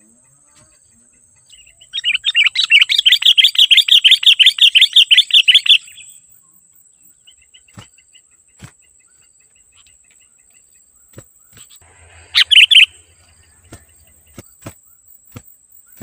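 Sooty-headed bulbul giving a loud, rapid chattering run of notes for about four seconds, then a short burst of the same chatter a little after midway.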